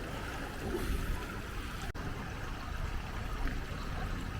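Steady rushing noise, heaviest in the low end, with a brief dropout about two seconds in.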